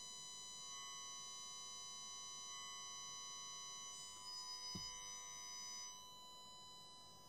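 Faint, steady, high, buzzy whine of a 1 kHz test tone played through a Roberts RM40 transistor radio's loudspeaker at full volume. The output stage is being driven toward clipping for dynamic balancing. A short thump comes near five seconds in, and the tone drops in level about six seconds in.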